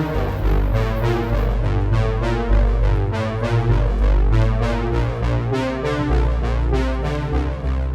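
Background music: an electronic track with synthesizer and keyboard notes over a steady, rhythmic bass line.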